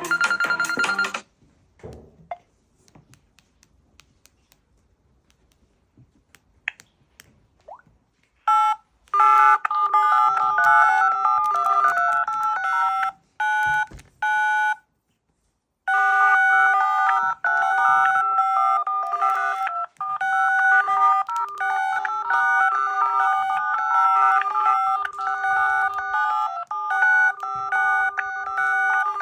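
Mobile phone ringtones: one ringtone cuts off about a second in, and after several seconds of near quiet another starts about nine seconds in, a fast electronic melody of beeps in keypad-like tones that breaks off twice briefly.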